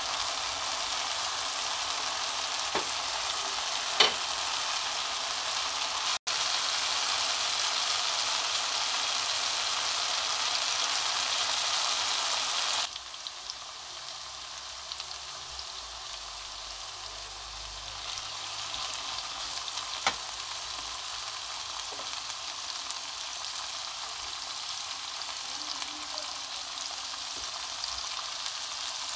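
Chicken, mushrooms and peppers sizzling in a frying pan, a steady hiss with a few sharp clicks. The sizzle drops to a quieter level about halfway through.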